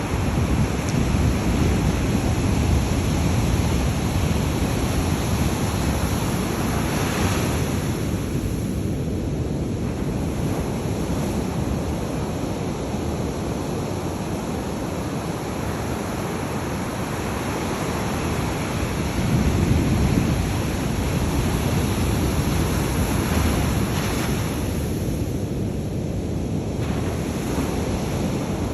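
Ocean surf breaking and washing up a beach in slow swells, with wind buffeting the microphone.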